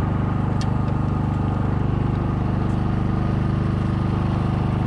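Generator engine on a bowfishing boat running steadily, a constant low drone, with one light click about half a second in.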